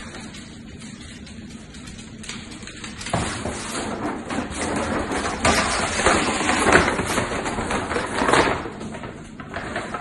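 A large plastic dog-food bag crinkling and scraping across a wooden floor as a dachshund drags and tugs at it. It starts fairly quiet and grows louder from about three seconds in, loudest shortly before the end.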